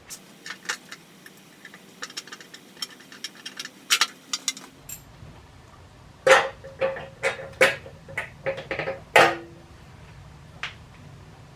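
Irregular clicks and clanks of metal tools and parts being handled, a few ringing briefly; the loudest clanks come in the second half.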